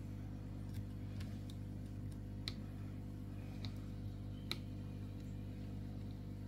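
A handful of faint, sharp ticks and clicks at irregular intervals as small plastic and metal parts of an HDP .50 pistol are handled and fitted by hand during reassembly, over a steady low hum.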